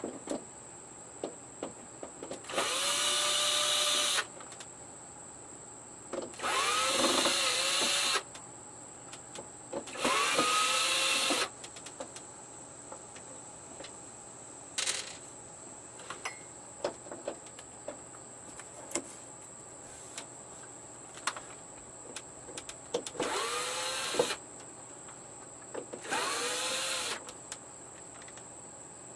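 Cordless screw gun driving screws out of a TV's back panel: five short motor runs, each spinning up in pitch and holding for a second or two, with small clicks and handling sounds between them.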